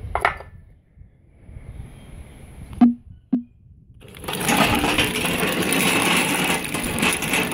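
Two sharp clicks, then about four seconds in a homemade remote-control tracked loader starts running on a 12-volt battery. Its electric drive motors, chain-and-sprocket drive and tracks make a loud, steady mechanical rattle.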